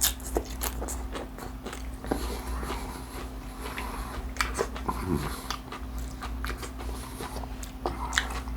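Close-miked biting and chewing of a crispy fried fish taco: a string of short, sharp crunches, over a steady low hum.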